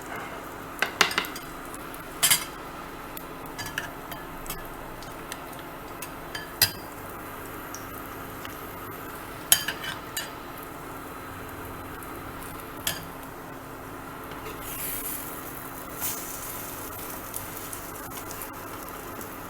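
A metal utensil clinking and scraping now and then on a hot griddle while bread and egg fry in ghee, with a soft sizzle and a brief louder hiss about fifteen seconds in.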